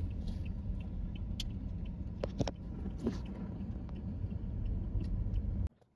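Car running, heard from inside the cabin: a steady low rumble with a few faint clicks. It cuts off suddenly near the end.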